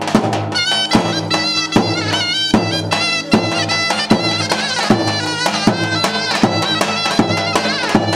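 Folk dance music: a shrill reed pipe plays a fast, ornamented melody, entering about half a second in, over a steady drum beat and a low held drone.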